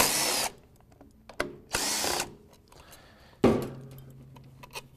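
A power driver backs out transmission valve body bolts in two short bursts, one at the start and one near two seconds in. About three and a half seconds in there is a single sharp knock with a brief ringing tail.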